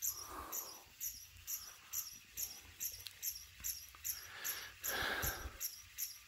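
A Canarm Twister ceiling fan running on medium, with a regular high squeak about two or three times a second from the fan rubbing on its housing because it is sitting on the floor; the owner says it is not bearing noise. A louder rushing sound swells about five seconds in.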